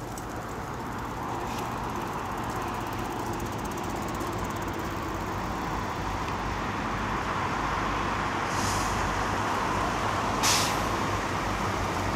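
Heavy dump truck's diesel engine running as it approaches, growing steadily louder, with two short hisses of its air brakes, the second near the end louder and sharper.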